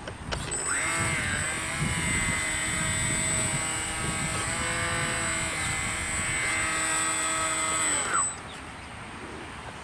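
Mini Wildcat radio-controlled boat's motor running as a steady high-pitched whine for about seven seconds. It rises as it powers up under a second in and drops away as the throttle is cut near the end.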